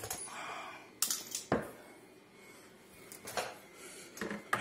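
Four light clicks and knocks of small hardware being handled, with a short rustle in the first second.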